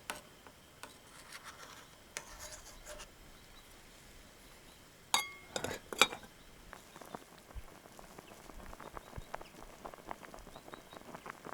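A metal spoon clinking against a cooking pot of fish soup: one ringing clink about five seconds in and another about a second later, then faint light ticking.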